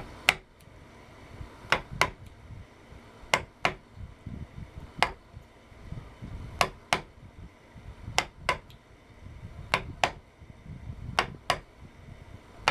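A wood chisel being struck to cut out a door-hinge mortise by hand, bevel down at an angle to lift the waste: sharp strikes, mostly in pairs, every second or two.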